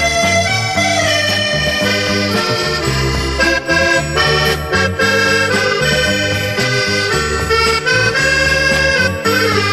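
Instrumental accordion music: an accordion carries the melody in sustained chords over a steady bass line.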